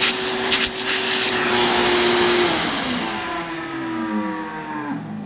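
Shop vac sucking drilling chips out of a bolt hole in cast iron, with a steady motor whine and rushing air. About two and a half seconds in it is switched off and winds down in a falling whine. The bearings sound worn, which the owner puts down to long use on a sandblasting cabinet.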